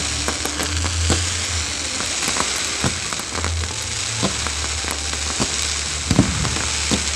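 Fireworks crackling: a dense hiss of crackling effects, dotted with many small sharp pops.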